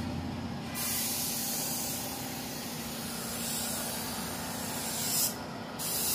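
Compressed-air gravity-feed paint spray gun hissing steadily as it sprays paint onto car bodywork. The hiss drops out for about half a second near the end, then resumes.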